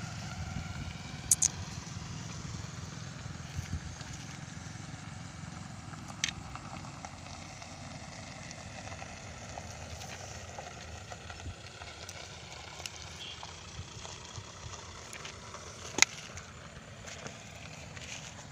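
A steady low outdoor rumble with a few scattered sharp clicks, the loudest near the end.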